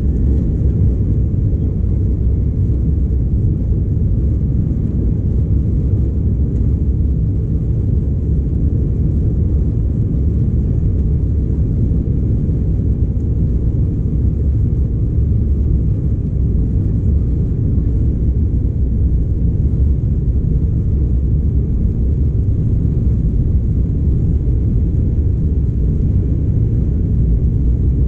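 Steady low rumble of an Embraer 195's twin GE CF34 turbofans, heard inside the cabin as the jet taxis slowly on the runway.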